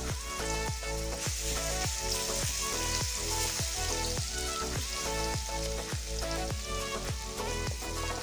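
Food sizzling as it fries, with a continuous hiss, under background music with a steady beat and strong bass.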